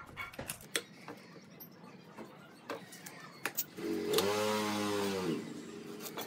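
Light clicks and taps of a pencil and steel square being set down and drawn along a wooden board. About four seconds in, a motor runs loudly for about a second and a half, its pitch dipping and rising.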